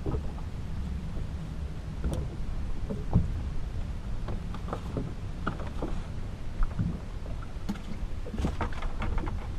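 Steady low rumble aboard a small motorboat at sea, with scattered light knocks and clicks as fishing gear is handled on deck; the loudest knock comes about three seconds in.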